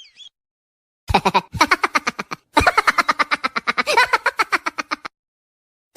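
Laughing sound effect: a fast, staccato string of short pitched pulses, starting about a second in, breaking briefly, then running on until it cuts off about a second before the end.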